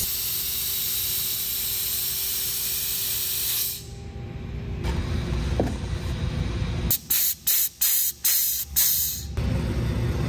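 Compressed-air blow gun hissing in one steady blast for about four seconds, then a run of five or so short blasts about seven seconds in.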